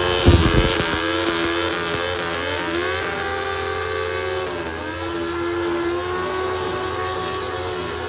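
An engine held at high revs during a tyre burnout, with smoke pouring off the spinning tyre. The revs sag and climb back twice.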